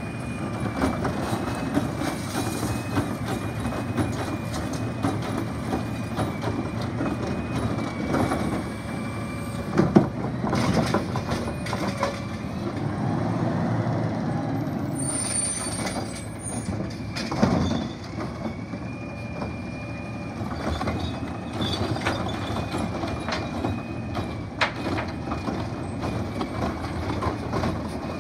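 Automated side-loading garbage truck at work: diesel engine running and the hydraulic arm lifting and dumping wheeled trash carts, with clanks and knocks of the carts and arm. A sharp bang about ten seconds in and another near the middle, and a steady high whine runs under it.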